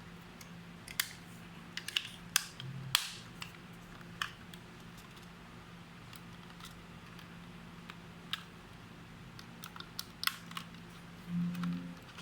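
Sharp plastic clicks and taps from handling a XINHUI 610B wireless doorbell, irregular and spaced out, the loudest in the first few seconds, over a steady low hum. A short low buzz comes near the end; no chime melody is heard.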